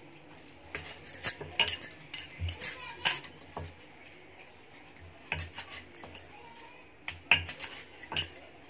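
Wooden rolling pin rolling out small wheat-dough rounds on a stone countertop: knocks of the pin on the stone with bangles clinking on the wrist, in three bursts with short pauses between.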